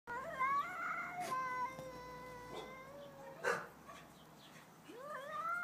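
Two domestic cats yowling at each other in a territorial standoff: one long, wavering, drawn-out yowl, a brief sharp noise about three and a half seconds in, and a second yowl that starts low and rises near the end. These are warning calls between rival cats.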